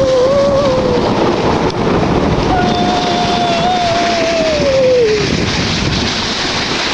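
Wind rushing over the microphone and a snow tube scraping along packed snow during a fast ride downhill. A rider gives a short held shout at the start and a longer one of about three seconds in the middle, which drops in pitch as it ends.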